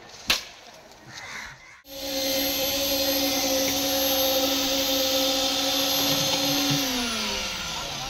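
A sharp knock just after the start. Then a concrete needle vibrator runs with a steady, loud whine, is switched off near the end and winds down, its pitch falling.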